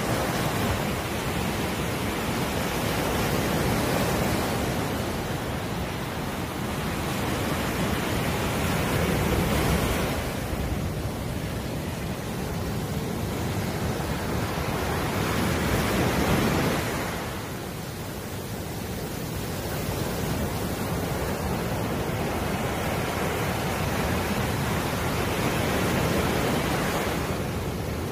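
Sea surf washing up a sandy beach: a continuous rush of breaking waves that swells and ebbs every several seconds, loudest about ten and sixteen seconds in and dipping briefly a little after each.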